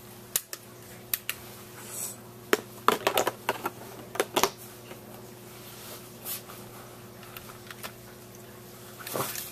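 Irregular plastic clicks and clatter as electronics-kit parts are snapped onto a plastic base board and handled, in clusters with pauses between, over a faint steady hum.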